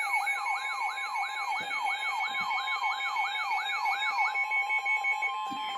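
Electronic emergency alert tone: a siren-like yelp falling in pitch about three times a second over a steady, pulsing higher tone. The yelping stops about four seconds in and the steady tones hold briefly before cutting off. It signals a severe thunderstorm warning.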